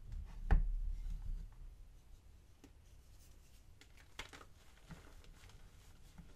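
Blocks of gym chalk crushed by hand in a plastic tub. A dull thump about half a second in is followed by crumbly crunching for about a second, then a few soft, scattered crunches and scratches of chalk powder.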